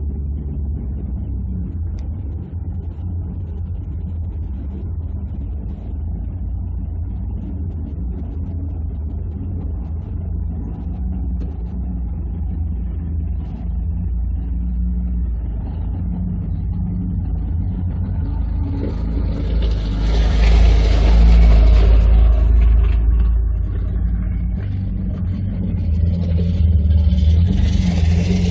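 Off-road vehicle engine idling with a steady low rumble. About two-thirds of the way through, a louder engine and rushing tyre noise swell and fade as another off-road vehicle drives past on gravel, and a second swell comes near the end.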